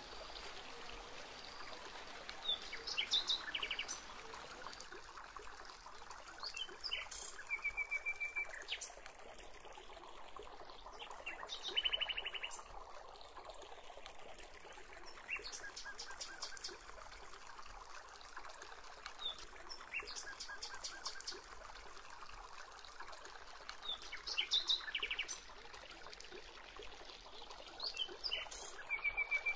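Small birds chirping and trilling in short phrases every few seconds, over a steady background hiss.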